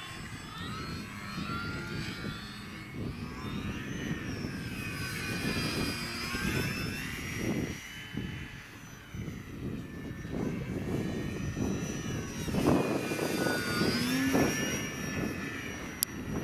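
Small radio-controlled aerobatic model airplane's motor and propeller whining overhead, the pitch rising and falling again and again as the throttle changes through its manoeuvres, over a low gusting rumble.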